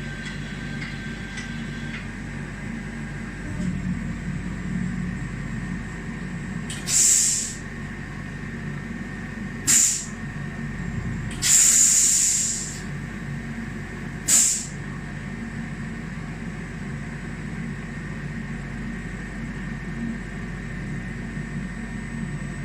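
Emco EmcoTurn 220 CNC lathe running with a steady hum, broken by four short, loud hisses like blasts of air. The third hiss lasts about a second.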